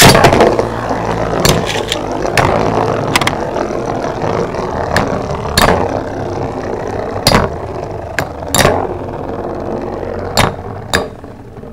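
Two Beyblade spinning tops, Galaxy Pegasus W105R2F and Flame Byxis 230WD, battling: a loud rush at the start, then a steady whirring with sharp clacks about once a second as they clash, getting quieter near the end as they slow.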